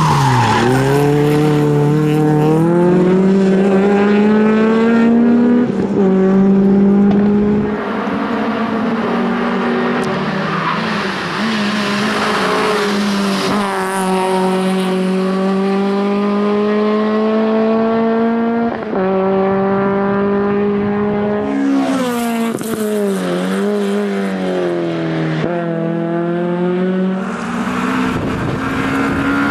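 Peugeot 306 rally car's engine driven hard. The revs climb and drop again and again as it changes gear and brakes for the corners, with the tyres squealing at times.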